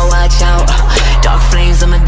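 A song playing, with a deep bass note held underneath and rapped vocals over a beat.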